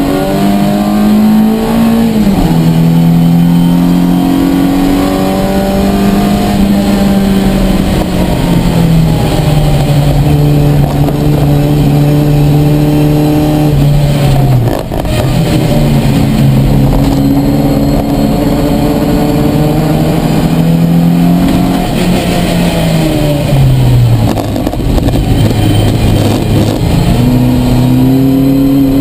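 Ford Fiesta race car's four-cylinder engine heard loud from inside the cabin, pulling through the gears. The note climbs slowly and drops sharply at gear changes about two seconds in and again about fifteen seconds in. It falls away over a couple of seconds a little past twenty seconds in, then climbs again near the end.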